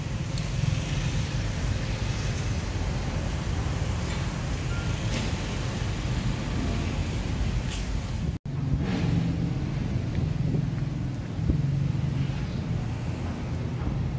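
Steady low rumble of road traffic and engines. It cuts out for an instant about eight seconds in, with a single soft thump a few seconds later.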